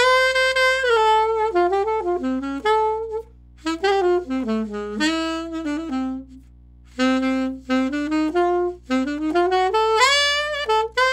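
Alto saxophone on a Boston Sax Shop M-Series mouthpiece with a 7 tip opening, played in three phrases of quick notes with slides, with short breaks about three and six seconds in. A faint steady hum sits underneath.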